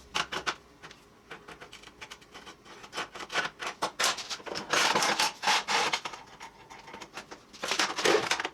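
Irregular scratching and rubbing strokes against a steel ammo can as cut lines are measured and marked on it, busiest in the middle and again near the end.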